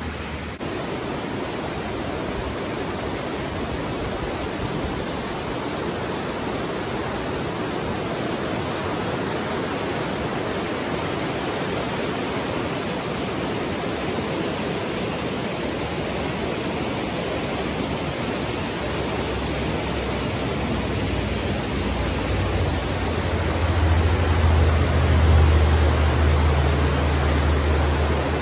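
Mountain trout creek in spate, rushing loudly over rocks and rapids: it is running high and fast after a night of heavy rain. A low rumble swells in the last few seconds.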